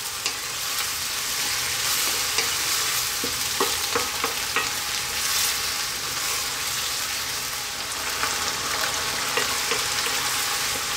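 Stir-fry vegetables sizzling steadily in a wok in a sauce of soy, oyster sauce and water, while a wooden spatula stirs them, its strokes heard as scattered light knocks against the pan.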